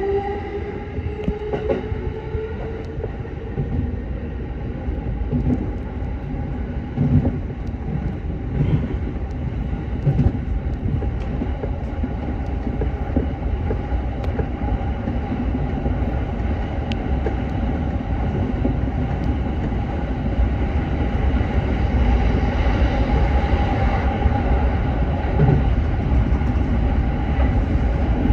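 Electric train running on the rails, a steady rumble with a held hum and scattered clicks of wheels over rail joints, growing louder in the last third.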